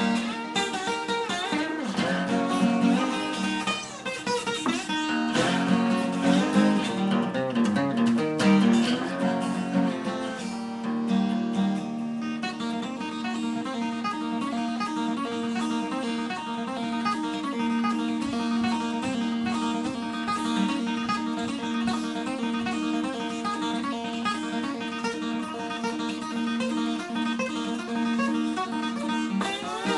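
Acoustic guitar playing a folk-blues song. For about the first ten seconds a wavering, gliding melody line rides over the guitar. After that the guitar settles into a steady, repeated picked pattern.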